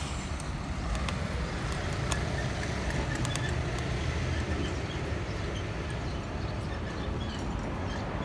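Street traffic heard from a moving bicycle: a steady low rumble of vehicle engines and road noise, with a few faint clicks.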